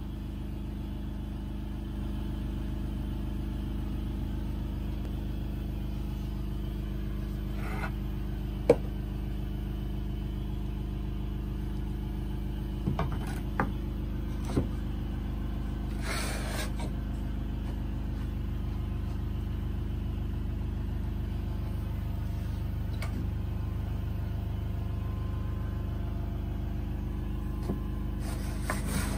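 Steady low machine hum throughout. Over it, a few sharp wooden knocks and a brief scrape as a homemade wooden table saw fence is handled and slid along the saw table.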